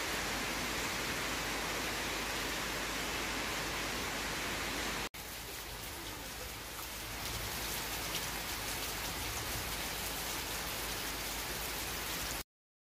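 Steady rain falling on a tiled terrace, an even hiss. It drops out for an instant about five seconds in, comes back a little softer with fine patter of drops, and cuts off just before the end.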